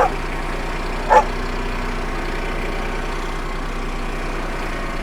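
Tractor engine running steadily, with a dog barking twice, once at the start and once about a second in.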